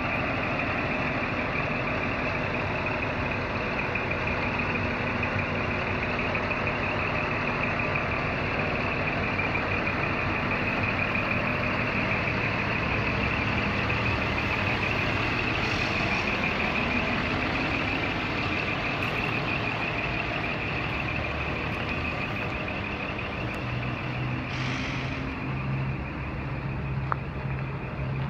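Scania P420LB truck's diesel engine idling steadily, with a constant high-pitched whine over it. A deeper steady hum joins in near the end.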